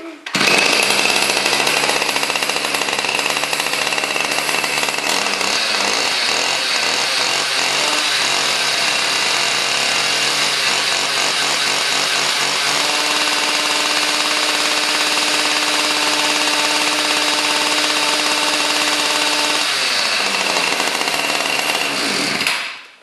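Small gas weed-trimmer engine starting about half a second in and running steadily at high speed, spinning a blender jar of ice and water through its drive shaft. Its pitch shifts somewhat partway through, and it is shut off near the end.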